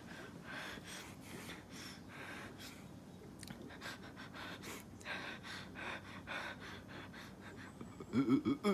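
A person breathing heavily in repeated gasps, with a short, louder vocal burst near the end.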